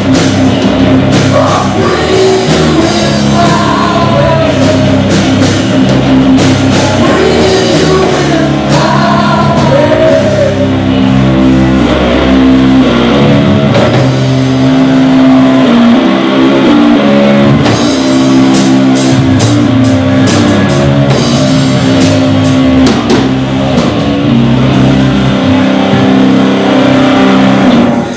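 Loud live rock band: a singer's voice over distorted electric guitar, bass guitar and a drum kit. The singing runs for about the first ten seconds, then the band carries on instrumentally with busy cymbal hits.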